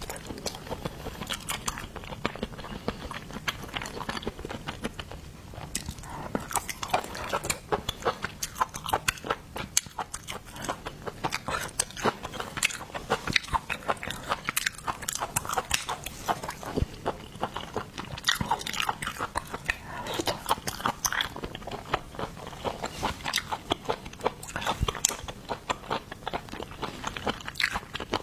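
Close-miked eating of seafood: a dense, irregular run of crunching, crackling and wet chewing clicks.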